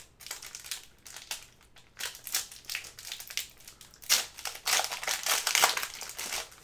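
Cellophane wrapper of a trading-card pack crinkling and crackling as hands work it open, in irregular bursts that grow loudest from about four seconds in.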